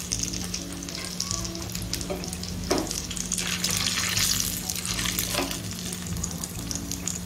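Semolina-coated hara bhara kababs shallow-frying in hot oil in a nonstick pan, the oil sizzling steadily. A slotted metal spatula knocks against the pan a few times as the fried kababs are lifted out.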